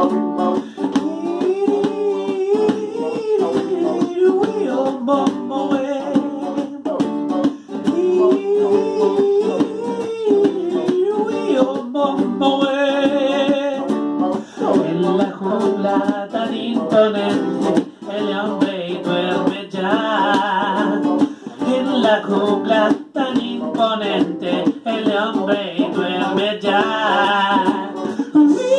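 Live singing with a strummed acoustic guitar and a hand drum slapped with the palms.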